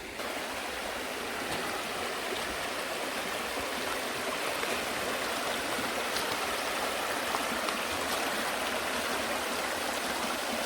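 Water running steadily in a small reservoir runoff stream, an even, unbroken rush.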